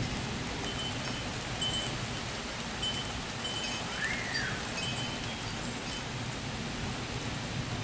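Steady rain during a thunderstorm, an even hiss. Faint short high tones recur about once a second, and a single rising-then-falling whistle comes about four seconds in.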